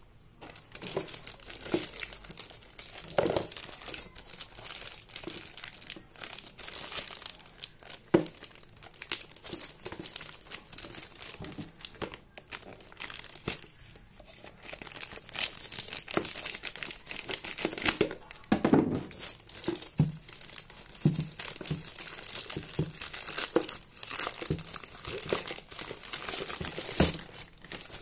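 A plastic courier mailer bag crinkling and tearing as it is cut open and handled, with a few louder low knocks in between.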